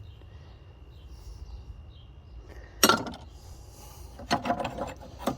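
Old metal hand tools and bits clinking as they are handled and set down: one sharp clank about three seconds in, then a quick run of clinks near the end.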